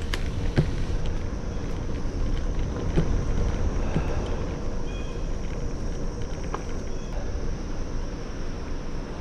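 Wind buffeting the microphone over the low rumble of a bicycle rolling along the trail, with a few light clicks and rattles from the bike.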